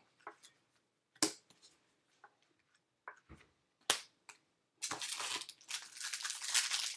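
A few separate sharp clicks as trading cards are handled, then from about five seconds in a busy crinkling and tearing as a foil baseball card pack is ripped open.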